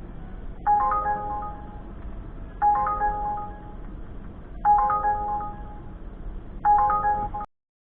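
Phone ringtone: a short melodic chime of a few quick notes that settles on one held tone, repeating about every two seconds, four times. It cuts off suddenly near the end.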